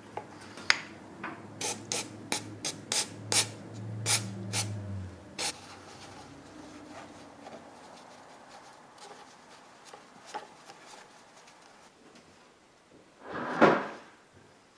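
About a dozen sharp clicks and knocks over the first five seconds as the metal parts of an old bottle jack are worked against a plastic basket in a tub. Then quieter rubbing as oily parts are wiped with a paper shop towel, with one louder rub of the towel near the end.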